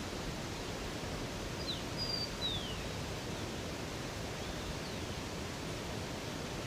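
River water rushing steadily. A bird calls over it with a few short, high chirps sliding downward, about two seconds in, and again faintly near the five-second mark.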